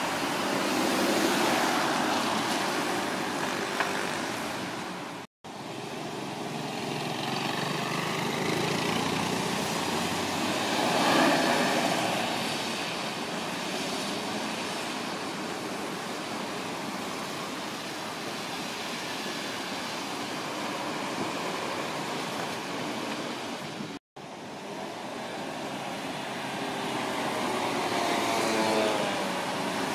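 Busy road traffic on a wet street: cars, vans and buses passing with a steady hiss of tyres on wet tarmac and engine noise. The sound cuts out abruptly twice, about 5 and 24 seconds in, and near the end an engine note rises as a vehicle speeds up.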